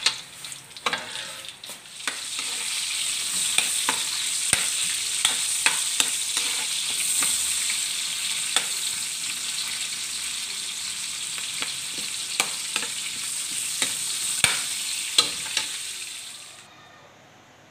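Garlic and onion sizzling in hot oil in a metal wok, with a metal spatula scraping and clicking against the pan as they are stirred. The sizzle comes in loud about two seconds in and cuts off suddenly about a second before the end.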